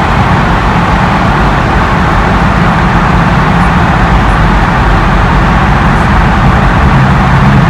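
Steady road noise inside a moving car: tyre noise on the road with a low engine and drivetrain hum.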